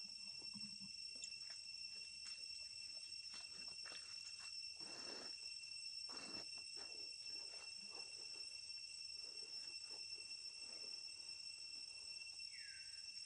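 Steady high-pitched insect chorus, several even tones held without a break, with scattered light rustles and clicks and one short falling chirp near the end.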